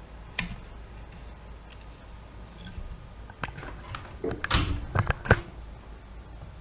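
Microphone at maximum gain picking up a steady low hum and hiss, with a sharp click near the start and a quick cluster of loud clicks and knocks in the second half.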